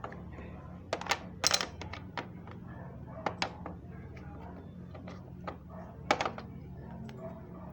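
Irregular sharp clicks and knocks, the loudest about a second and a half in and again about six seconds in, over a steady low hum.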